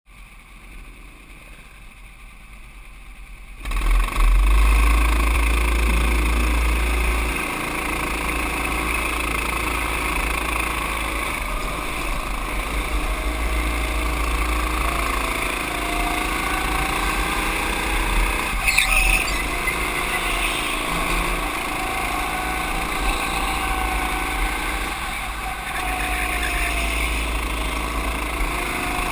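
Go-kart engines, faint at first and then loud and steady from about four seconds in as the karts get under way, with wind rushing over the onboard microphone. The engine pitch rises and falls through the corners.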